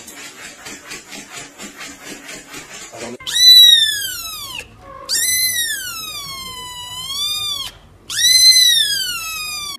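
A cat meowing three long, loud, high-pitched calls, each sliding down in pitch and back up. They follow a quieter rhythmic rasping at about four strokes a second that lasts about three seconds.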